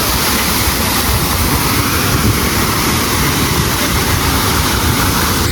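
Waterfall rushing close by: a loud, steady roar of falling water with no breaks.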